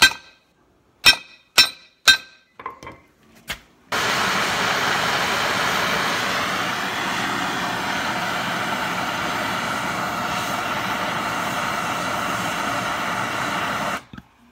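A hammer strikes a heated nail head on a small steel anvil: four sharp ringing blows in the first two seconds, then a few lighter taps. About four seconds in, a MAPP gas torch starts with a steady hiss that holds for about ten seconds and cuts off abruptly near the end.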